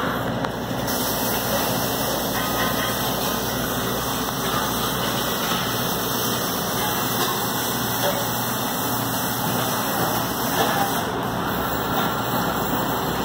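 Robotic MIG welding arc running steadily from about a second in until about eleven seconds in, over a constant background drone.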